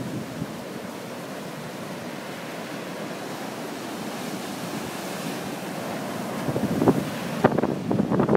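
Rough, typhoon-stirred surf washing and breaking steadily. Wind gusts buffet the microphone from about six and a half seconds in.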